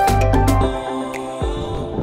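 Background electronic music with sustained synth chords and a deep kick drum. The bass drops out briefly in the middle and the kick comes back near the end.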